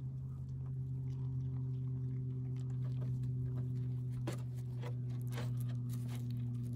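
A goat moving over dry dirt and twigs and nosing a fallen branch, making a few sharp clicks and crunches in the second half, over a steady low hum.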